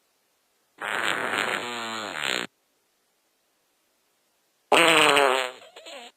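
Two fart sounds one after the other, with a silent gap of about two seconds between them. The first lasts about a second and a half with its pitch falling; the second starts louder and trails off over about a second and a half.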